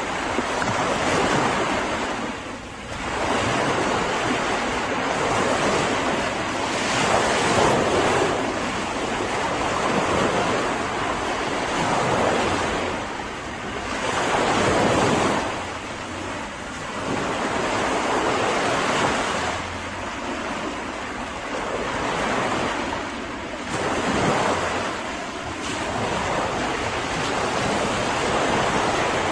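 Sea waves breaking and washing up on a beach, the surf swelling and easing every few seconds.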